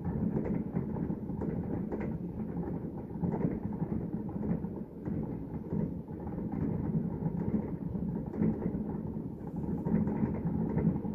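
A fireworks display heard from a distance: many shells bursting in quick succession, merging into a continuous low rumble with faint crackles on top.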